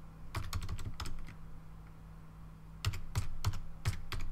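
Computer keyboard typing: two quick runs of keystrokes with a pause of about a second and a half between them.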